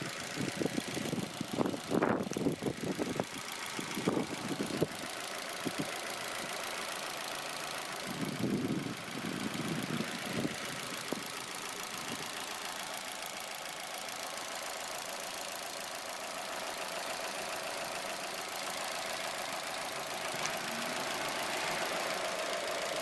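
Opel Mokka's 1.6 Ecotec four-cylinder petrol engine idling steadily under the open bonnet. Irregular bumps and rustles come in the first few seconds and again near the middle.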